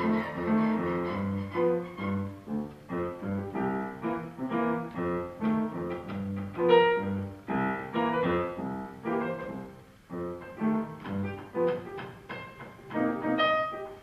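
Grand piano played with one hand on the keys while the other presses on the strings inside the case, damping them so the notes come out short and muted, sounding like a plucked bass or guitar. A busy jazz line of quick notes, with a brief lull about ten seconds in.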